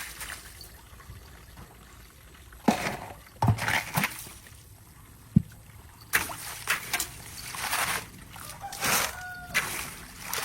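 Water splashing and trickling in irregular bursts, with a few sharp knocks.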